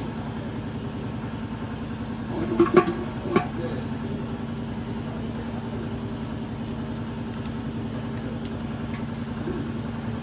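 A few sharp metallic clinks about three seconds in, tools working at the oil drain plug, over a steady machine hum.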